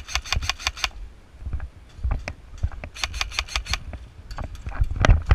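Airsoft rifle firing two short full-auto bursts of rapid clacking shots, about eight a second: one at the start and one about three seconds in. Scattered knocks follow near the end.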